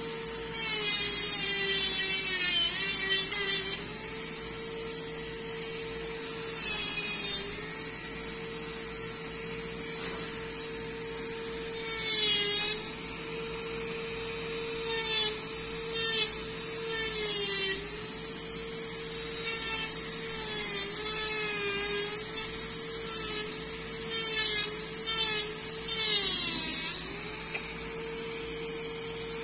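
Dental lab micromotor handpiece spinning a cone-shaped tip, grinding and finishing the acrylic edge of an orthodontic retainer. Its steady high whine dips in pitch each time the tip is pressed into the acrylic, with gritty grinding hiss on each pass.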